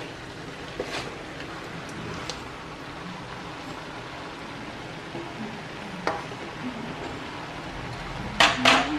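Wooden spatula stirring in a large aluminium wok, with light scrapes and clicks against the metal over a steady hiss. Near the end come two loud clattering knocks on the wok as straw mushrooms go in.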